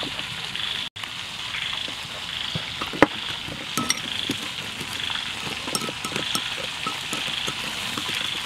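Metal spoon clicking and scraping against a small glass bowl, stirring a salt-and-pepper seasoning mix, with one sharp clink about three seconds in and quick repeated clicks from about four seconds on. Underneath, a high chirring that pulses about once a second.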